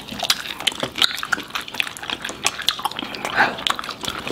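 Close-up wet chewing and lip-smacking of people eating sauce-covered chicken wings off the bone, a quick irregular run of sharp smacks and clicks.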